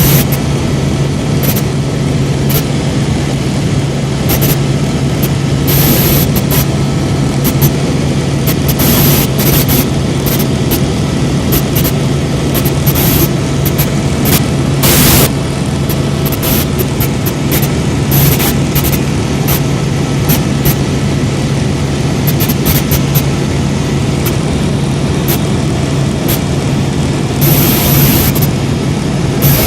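Helicopter in flight heard from inside the cabin: a loud, steady drone of turbine and rotor with a strong low hum, and a few brief rushes of wind noise on the microphone.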